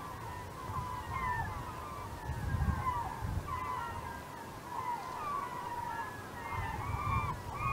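A large flock of gulls calling over the river, many short overlapping cries one after another, with an irregular low rumble beneath.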